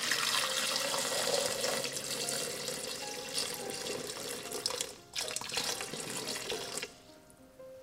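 Water boiling hard in a pot of chestnuts: a dense bubbling hiss that breaks off briefly about five seconds in, resumes, and stops near the end.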